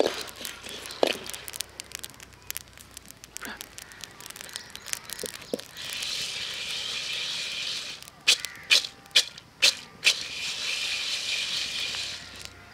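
Coriander seeds and dried red chillies dry-roasting in an iron kadai. A metal spatula scrapes and clicks against the pan, then the seeds rattle steadily as the pan is lifted and tilted. A few sharp metal knocks come in the middle.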